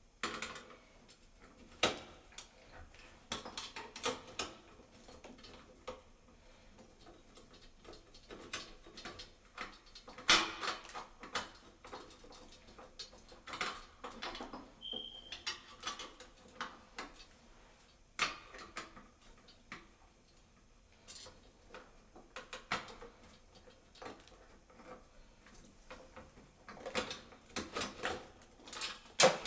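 Irregular clicks, clinks and scrapes of small metal parts and hand tools being handled, with a brief squeak about fifteen seconds in.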